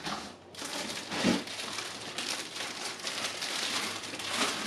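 Packaging crinkling and rustling as unboxed items are handled, with a soft knock about a second and a quarter in.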